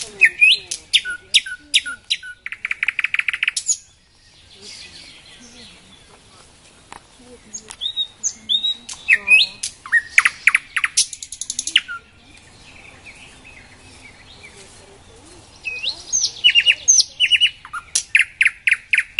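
Nightingale singing: three song phrases a few seconds apart, each mixing clear whistled and sweeping notes with runs of fast repeated notes and rapid trills.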